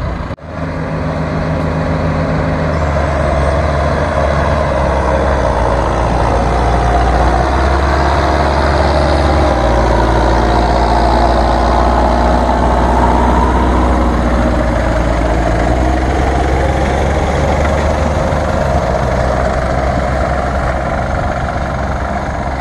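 Farm tractor diesel engines running hard under load in a tractor pull, a loud steady drone that climbs about three seconds in.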